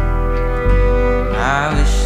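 Slow live acoustic music: acoustic guitar over sustained string notes, with no singing. The low bass note changes twice, and a wavering higher note comes in about a second and a half in.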